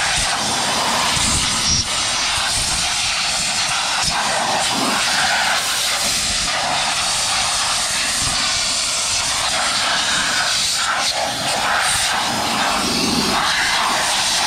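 Compressed-air blowgun with a long wand blasting a steady hiss of air to clear leaves and debris out of a car's engine bay, with an uneven low rumble underneath.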